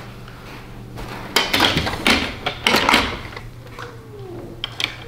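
Clicks and knocks of hands handling a plastic toy crane's hook, bunched together in the middle, then a few lighter taps.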